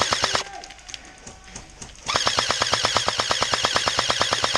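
Airsoft electric gun firing on full auto: a short burst ending about half a second in, then a long burst of about a dozen shots a second starting about two seconds in.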